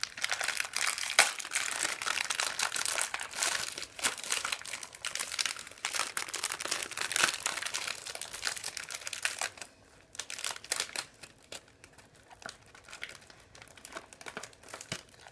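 Candy wrapper being crinkled and torn open by hand: dense crackling for about nine seconds, then only faint, scattered crinkles.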